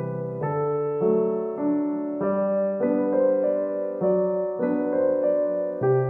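Background music: a piano melody played on a keyboard, with a new note struck about every half second and the chords ringing on underneath.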